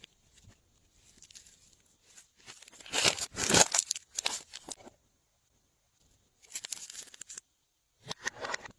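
Hands stretching, pulling and pressing glossy slime, heard in three bursts with pauses between them, the loudest about three to four and a half seconds in.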